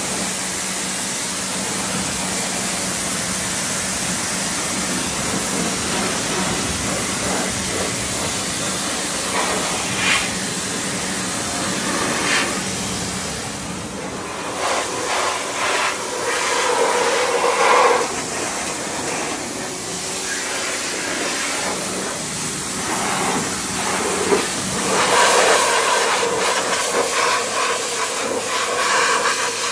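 Pressure washer spraying water onto a motorcycle: a loud, steady hiss of spray over a constant low hum, its sound changing in places as the jet hits different parts of the bike.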